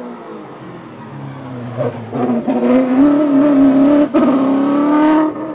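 Open-wheel single-seater race car's engine at full throttle as it climbs past, the note rising and loudest about three to five seconds in. A brief break with a click a little after four seconds is a gear change, and the sound falls away quickly near the end.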